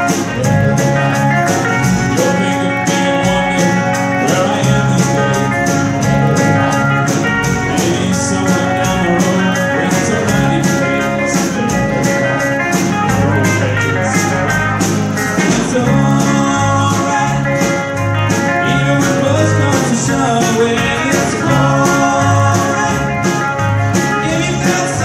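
A small band playing live: electric guitars, electric bass, keyboard and drum kit keeping a steady beat, with a man singing lead.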